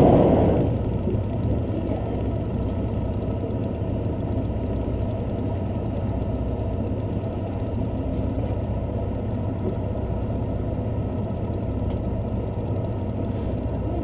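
Steady running rumble heard inside a diesel limited-express railcar moving along the line, with a louder swell right at the start.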